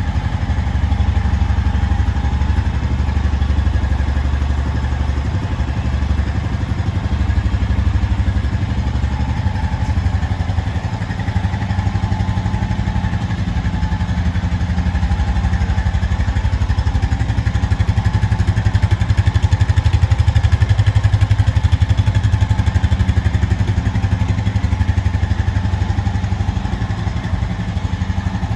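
Honda TRX 520 FA6 ATV's 518cc liquid-cooled single-cylinder four-stroke engine running steadily, growing a little louder about two-thirds of the way through.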